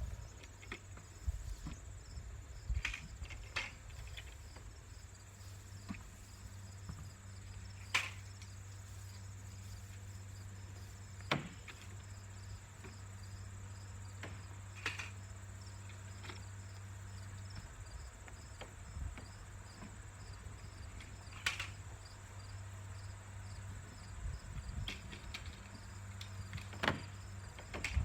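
Crickets chirping in a fast, even pulse, over a faint steady low hum that stops about two-thirds of the way through, with a few scattered sharp clicks and knocks.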